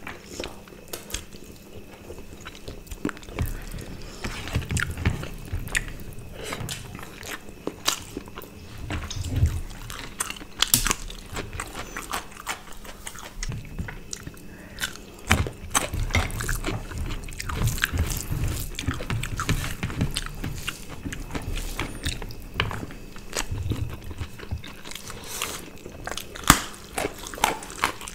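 Close-up eating sounds of two people chewing and biting rice, roast chicken and curry eaten by hand, with many short mouth clicks and smacks at an uneven pace.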